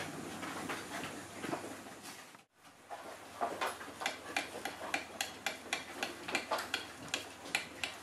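Puppies scrambling and playing on a hard floor, their claws and paws making a quick, uneven run of clicks and taps. The sound drops out briefly about two and a half seconds in.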